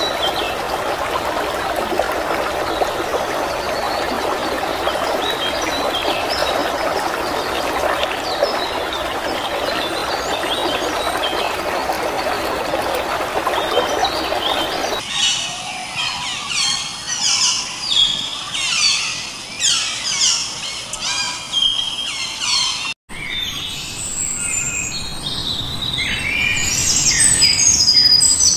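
A steady rushing noise with faint chirps over it. About fifteen seconds in it switches abruptly to songbirds chirping and trilling in many short, high, rising and falling calls, broken by a momentary dropout near the end.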